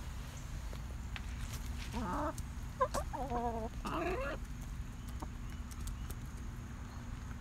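A white domestic hen giving three short calls in quick succession, about two to four seconds in, each wavering in pitch, over a steady low background rumble.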